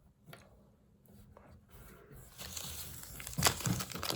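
Plastic blind-bag packet crinkling and tearing as it is handled and opened. It starts faint and gets louder in the second half, with a few sharp crackles.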